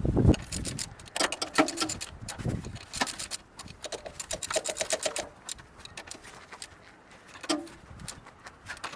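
Hand tools working on the steel parts of a manure spreader's gear case: several short runs of rapid metallic clicking and clinking, metal on metal.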